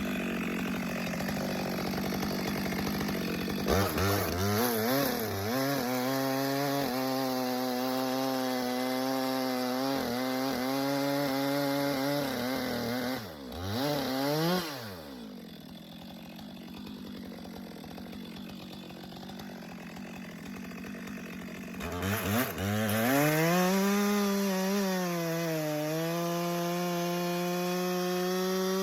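Stihl MS 462 chainsaw cutting large log rounds: the engine runs high, then pulls down to a lower, wavering pitch under load for several seconds. About halfway it drops back to idle, then revs up again near the end and holds at high revs.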